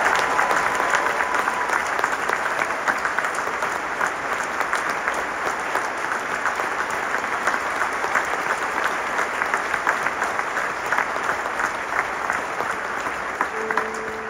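Large arena audience applauding, dense clapping that slowly eases off. A short held tone sounds near the end.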